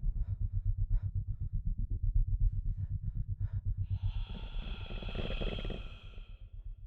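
Creature sound effects: a fast, low throbbing pulse that slowly fades, with a few sharp clicks over it. About four seconds in comes a breathy, rasping monster exhale, which dies away near the end.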